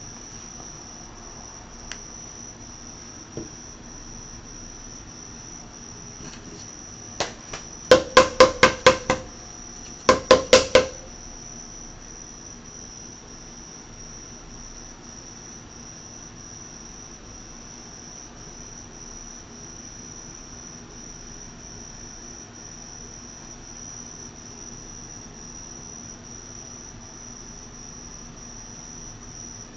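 A steady high-pitched insect trill runs throughout over a low hum. About seven seconds in comes a quick run of sharp knocks with a short ringing tone, about eight in a row, then four more a second later.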